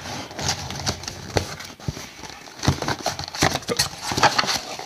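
Cardboard trading-card blaster box being torn open and handled: irregular ripping, crinkling and knocks of the packaging.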